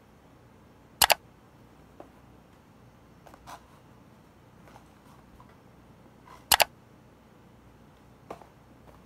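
Cardboard tea boxes handled and set down on a hard desk: two loud, sharp double clicks, about a second in and again near six and a half seconds, with a few light taps and rustles between.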